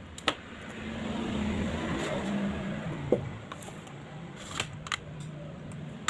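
Handling clicks as the optical DVD drive is pried loose and slid out of an Asus X455L laptop's drive bay: several short, separate plastic-and-metal clicks and taps over a steady low hum.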